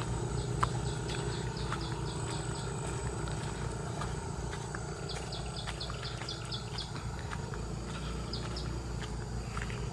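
A small bird gives runs of short, high chirps, several a second, each run lasting a second or two, repeated three times. Under it runs a steady low rumble and a faint, thin, high insect whine.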